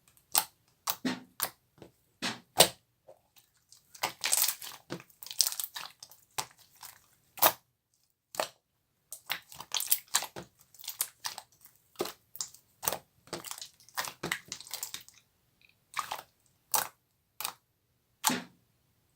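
Black slime being pressed, squeezed and poked by hand, giving irregular sharp pops and crackles, some single and some in quick clusters, with short pauses between.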